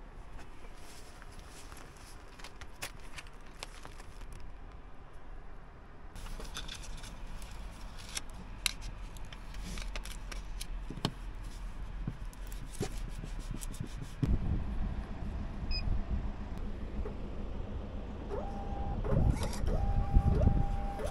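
Clicks, knocks and rustles of things being handled inside a parked van. Later a low rumble comes in, and near the end a parking ticket machine gives several short electronic beeps.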